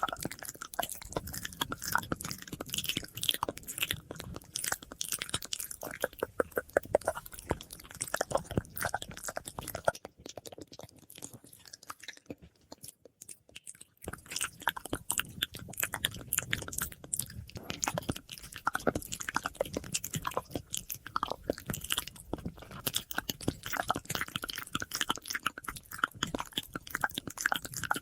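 ASMR mouth sounds: dense, fast wet clicks and smacks with an echo effect, dropping away for a few seconds near the middle.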